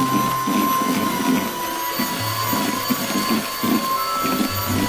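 Electric hand mixer running steadily, its beaters whisking a thick butter batter in a metal bowl, with a steady motor whine. Background music plays alongside.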